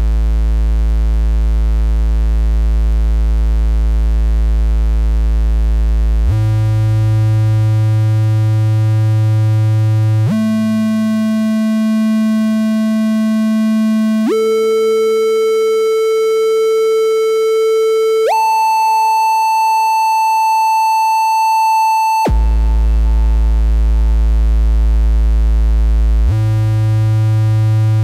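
Analog synthesizer VCO built from the LM13600 OTA single-amplifier VCO circuit, giving a steady triangle-wave tone rich in harmonics. The pitch steps up an octave about every four seconds through five notes, from about 55 Hz to about 880 Hz, then drops back to the lowest note and climbs again.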